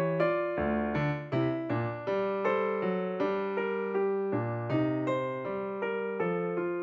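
Background music: a piano or electric piano playing a melody over bass notes, each note struck and then fading, about three notes a second.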